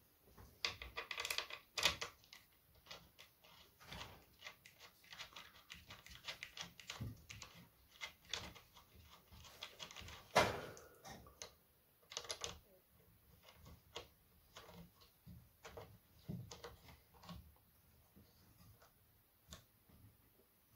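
Irregular small clicks, taps and scrapes of metal and plastic parts being handled and screwed together as the chainsaw attachment is fitted onto the angle grinder, with a louder knock about ten seconds in.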